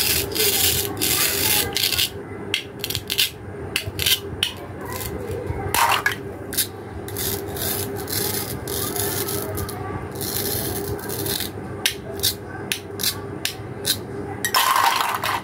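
Plastic toy fruit and vegetable pieces being pulled apart and pressed together by hand: several rasping tears, the strongest near the end, among many short plastic clicks and knocks.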